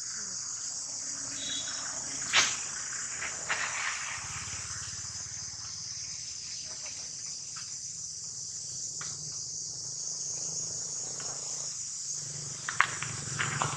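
Steady, high-pitched drone of insects in the trees, with a sharp click about two seconds in and a few more clicks near the end.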